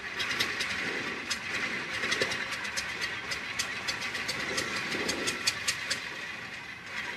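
Single-engine light aircraft's piston engine running at low power as the plane comes in low on approach to land, with irregular crackling clicks over the steady engine noise.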